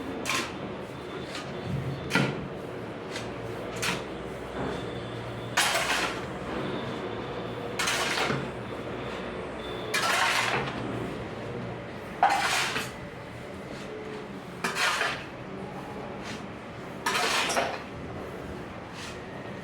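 Cement mixer running: a steady motor hum with a clattering, swishing rush of the mix tumbling in the turning drum about every two and a half seconds, and scattered sharp knocks.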